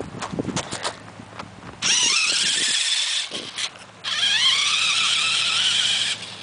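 Three-wheeled ATC's engine revving hard twice, each a rising, high-pitched whine that climbs, holds for about two seconds and cuts off. A few short knocks come first.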